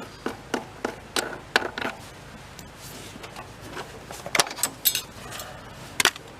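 A scatter of light clicks, taps and rattles as the casing and parts of a Predator 8750 inverter generator are handled to get at the carburetor, with a sharper click near the end.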